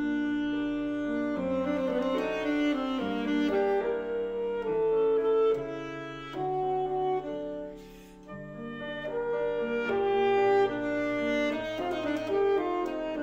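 Alto saxophone playing a melody of held notes, with a short break in the line about eight seconds in.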